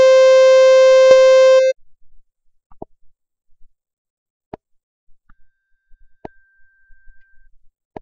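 Software synthesizer (LMMS Triple Oscillator) playing one steady, loud, organ-like note that cuts off suddenly under two seconds in. After it come a few sharp clicks, spaced more than a second apart, and a faint thin high tone for a moment in the middle.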